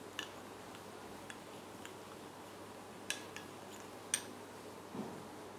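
Metal spoon stirring a paste of grated potato and aloe vera gel in a small glass bowl, giving scattered faint clinks and ticks against the glass, two of them sharper a little past the middle.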